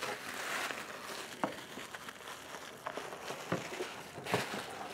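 Plastic packaging crinkling and rustling as a new head gasket is unwrapped from its parts box, with a few light knocks and ticks of handling.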